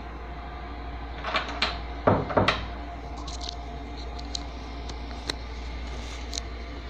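Phone being handled and repositioned: a brief rustle, then a few loud knocks and some small clicks, over a steady low hum.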